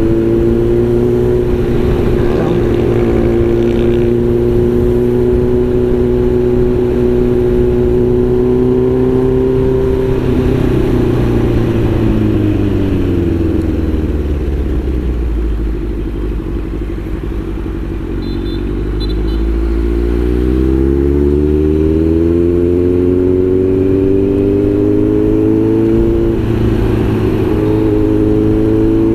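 Kawasaki Z900's inline-four engine running at a steady cruise, then its note falls as the bike slows about ten seconds in, stays low for a few seconds, and climbs again as it accelerates back up to cruising speed.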